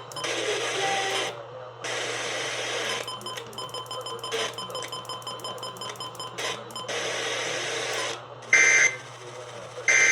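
Radio static and hiss with clicking, buzzing interference, as a receiver sits between or tunes across stations. Near the end come two short, loud bursts of screeching digital tones, a little over a second apart: the data header of an Emergency Alert System broadcast.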